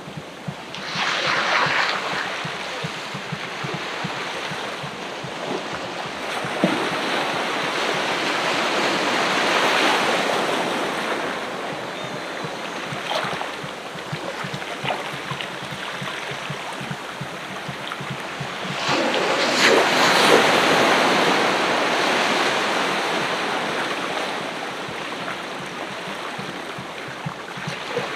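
Ocean waves breaking and washing up the beach, in three swells: one about a second in, a slower one around ten seconds in, and the loudest around twenty seconds in, ebbing between them.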